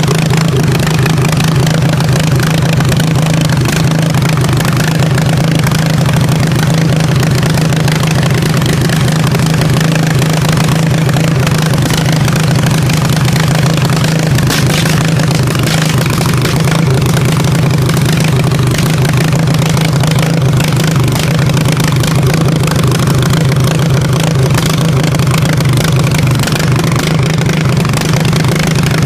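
Engine of a riding lawn mower built for demolition derby, running steadily at an even pitch as it is driven, with no revving up or down.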